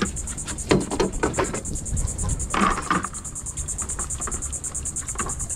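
Steady, high-pitched, rapidly pulsing insect trill, with a low rumble of wind on the microphone and a few brief louder sounds about a second in and near the middle.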